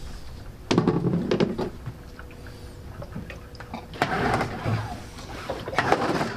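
Small Yamaha outboard motor being pull-started: the recoil starter cord rasps out in three separate pulls, and the engine does not catch.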